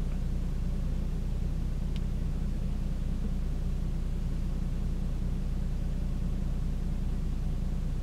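Steady low rumble with no distinct events, apart from one faint click about two seconds in.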